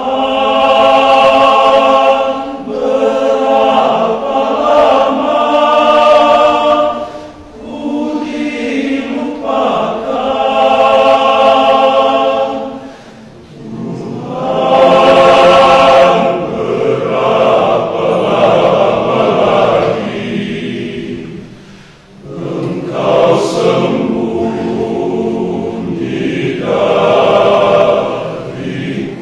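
Men's church choir singing in held chords, phrase by phrase. The sound dips briefly between phrases, three times.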